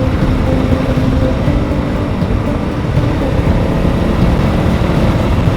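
Honda CRF300 Rally's single-cylinder four-stroke engine running steadily while the bike is ridden at an even pace, its engine note under a dense, low rumbling noise.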